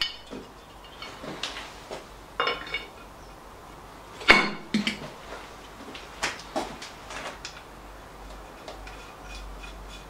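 Metal clinks and knocks as the top casting of a 1937 Lister D engine is set down on its studs and gasket and its nuts are fitted, with the loudest knock about four seconds in.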